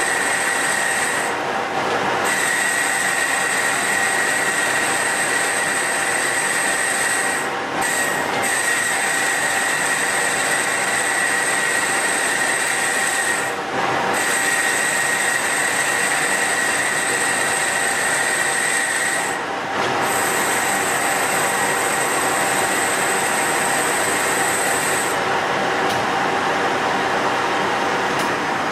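Boring bar with a carbide insert cutting inside the bore of a cast plate spinning in a lathe, with a loud, steady high-pitched squeal over the machine noise. The squeal breaks off briefly about every six seconds. The bore is being opened out to size before single-point threading a 1-inch BSP thread.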